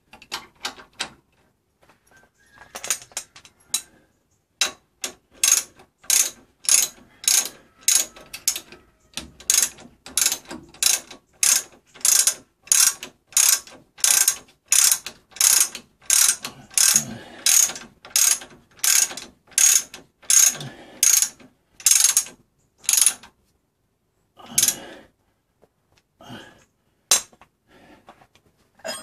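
A hand socket ratchet clicks in short bursts on each back-swing, about two to three a second, as a nut on the Land Rover Defender's front radius arm is turned. The strokes run steadily through the middle and thin out to a few scattered clicks near the end.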